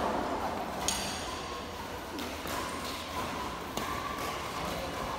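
Badminton doubles play in an echoing sports hall: one sharp racket strike on the shuttlecock about a second in, then a few lighter taps.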